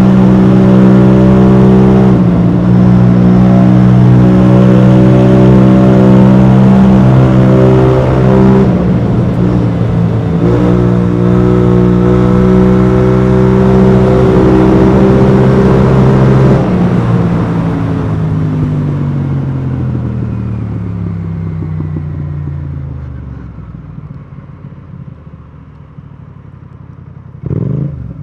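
BMW C650GT maxi-scooter's parallel-twin engine through an Akrapovic exhaust, running hard at steady revs, then the revs wind down steadily over several seconds as the scooter slows, settling to a quiet idle. Near the end there is one short rev blip.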